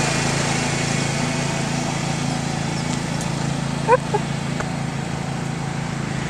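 John Deere riding lawnmower engine running steadily, with a short rising squeal twice in quick succession about four seconds in.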